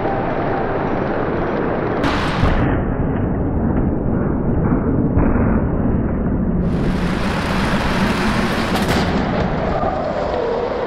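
Crash-test impacts of cars against a barrier and a side-impact sled: crunching metal and breaking glass, with sharp strikes about two seconds in and again near the end, over a dense, continuous crash noise.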